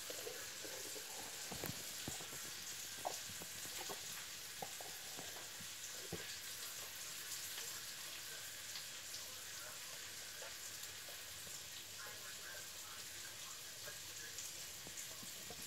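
Faint, steady sizzle of asparagus sautéing in a cast-iron skillet, with a few light knocks and clicks of handling scattered through it.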